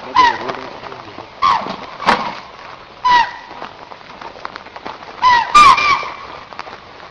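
A run of short, honking animal calls, each one dipping in pitch, about seven in all at irregular gaps, with three in quick succession about five and a half seconds in. A faint hiss of forest background lies between them.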